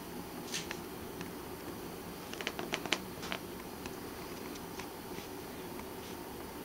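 A kitten's claws catching and scratching on worn fabric upholstery as it moves, with a few light clicks and a quick cluster of them around the middle, over a steady low hum.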